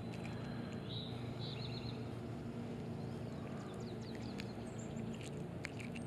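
A bird calls once about a second in, a short high note followed by four quick chirps, over a steady low background hum. A few faint clicks come later.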